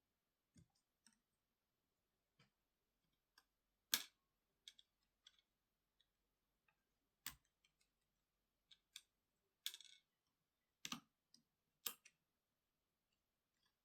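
Faint, irregular light clicks and taps, about a dozen, from small tools and screws being handled while a MacBook Pro laptop is taken apart.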